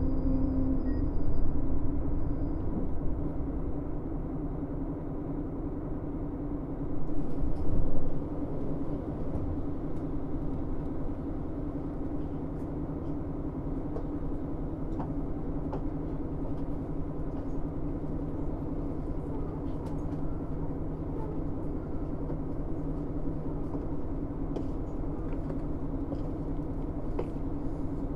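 KiHa 110 series diesel-hydraulic railcar heard from inside: the diesel engine's steady drone with wheel-and-rail running noise. It swells briefly about a second in and again about 7 seconds in. From then on a light hiss and scattered small clicks join it.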